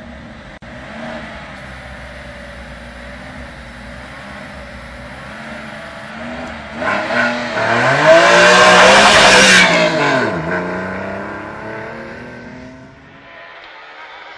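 Porsche 911 (996) flat-six engine running at the rally start line, then revved hard as the car launches away, with some tyre noise. It climbs in pitch, drops once as it shifts up, and fades as it leaves.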